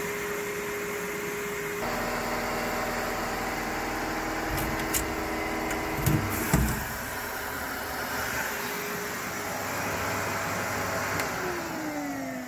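Shot blast cabinet running, with a steady hiss and the hum of its dust-extractor motor. A few metal clunks about six seconds in come from the cabinet door being opened. Near the end the motor winds down, its pitch falling.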